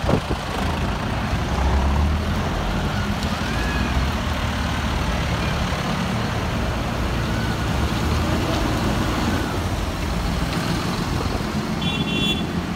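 Farm tractors' diesel engines running as the tractors drive past one after another at low speed. A horn starts sounding about a second before the end.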